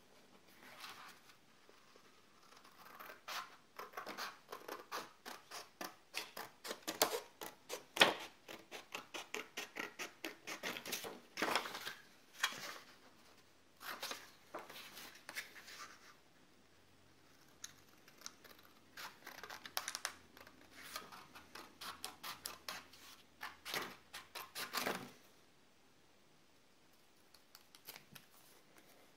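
A pair of scissors cutting through sketchbook paper, in runs of quick snips broken by short pauses.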